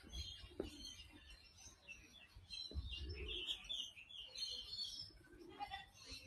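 Small birds chirping and twittering, many short high calls overlapping one another.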